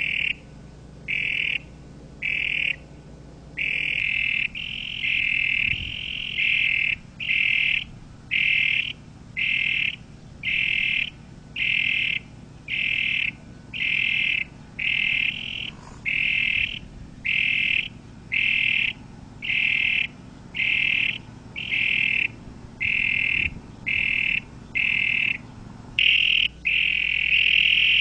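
Toad calling: a high, trilled call repeated about once a second, each burst about half a second long, running into one long unbroken call near the end.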